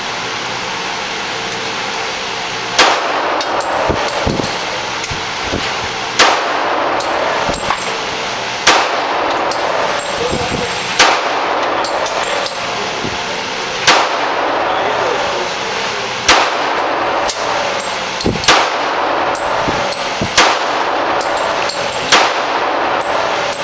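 A .45-calibre Glock pistol fired in slow, deliberate single shots, about ten of them, two to three seconds apart, each sharp report followed by a short ring.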